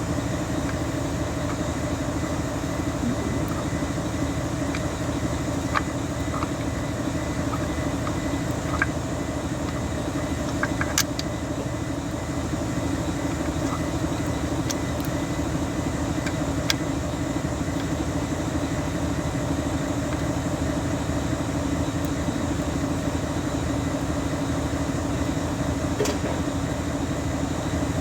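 Steady mechanical hum of a running engine or motor, with a few sharp metallic clicks from hand tools at work on the engine.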